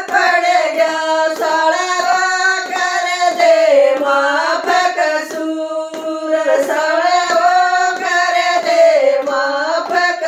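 Women singing a Haryanvi jakdi folk song, keeping time with their own hand claps at about two claps a second.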